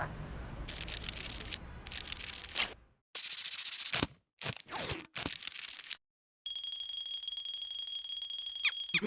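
Cartoon sound effects: a run of short crackling noises broken by brief silences, then a steady high-pitched ringing tone lasting a few seconds.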